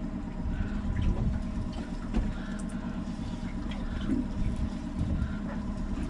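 Outboard motor running steadily at trolling speed, a low hum under faint water sounds around the hull.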